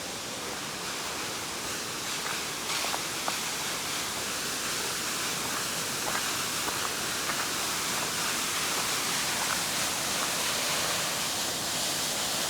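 Queen Mary Falls' waterfall: a steady rush of falling water that grows slowly louder, with a few faint clicks. The falls are carrying little water at the moment.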